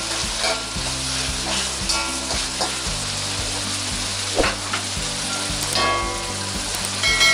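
Chopped chicken and shrimp sizzling in hot oil in a wok, stirred with a metal spatula that scrapes and clinks against the wok several times, a few strokes leaving a short metallic ring.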